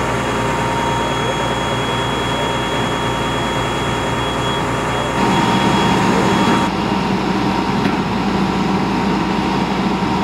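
Fire engine's diesel engine and pump running steadily at the scene, a loud continuous hum with a fixed whine over it. About five seconds in it turns deeper and a little louder.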